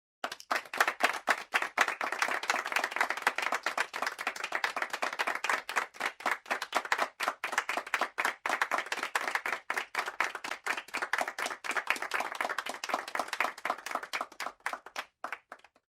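Applause: a group of people clapping, a dense steady patter of claps that starts suddenly and thins out and stops just before the end.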